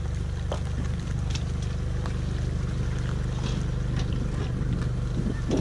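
Boat's outboard motor running steadily at low revs, with a few faint clicks and knocks over it.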